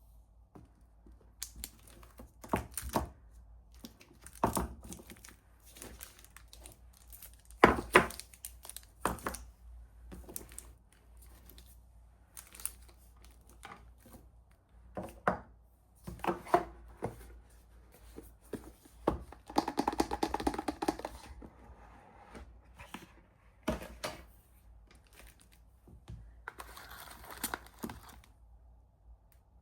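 Soap bar wrappers being torn open and crinkled by hand, in irregular sharp crackles and rustles, with two longer stretches of crinkling near the middle and near the end.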